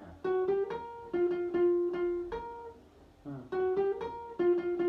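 Guitar picking a single-note circus riff high on the neck, with quick repeated notes on one pitch. The phrase is played twice, with a short pause between the two.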